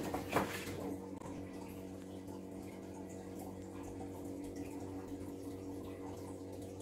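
A steady low hum, with a brief rustle of paper sheets being handled near the start.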